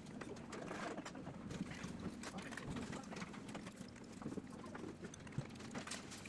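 Faint clinks and taps of metal chopsticks and a spoon against bowls and small side-dish plates, many short clicks over low restaurant room noise.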